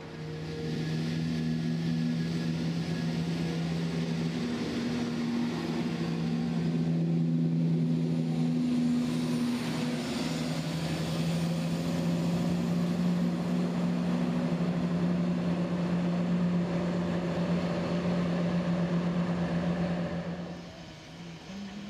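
Diesel multiple unit's underfloor engines running with a steady low drone and a hiss above it, cutting off sharply near the end.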